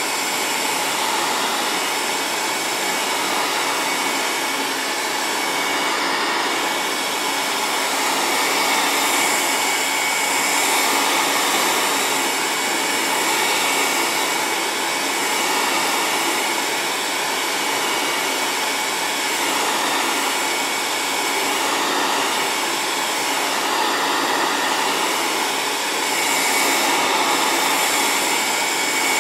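Heat gun blowing hot air steadily to shrink heat-shrink tubing onto a bicycle seatpost: a constant airy rush with a thin steady whine in it, swelling and easing slightly every few seconds as the nozzle moves along the tube.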